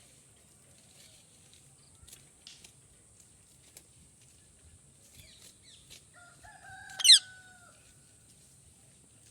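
Parrot calling: a drawn-out, crow-like call begins about six seconds in, with one short, loud, shrill squawk over it about a second later. Before that there are only faint scattered chirps and clicks.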